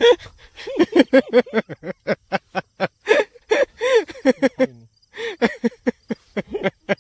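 A man's voice in quick, short voiced syllables, with a brief pause about two-thirds of the way through.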